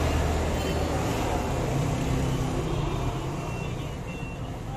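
Road traffic: a motor vehicle engine running close by over a steady traffic noise, easing off a little near the end.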